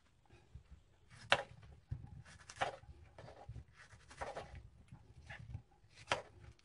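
Kitchen handling noises: a few short, sharp knocks and clatters of things being picked up and set down, the loudest about a second in, near the middle and near the end, with softer rustling between.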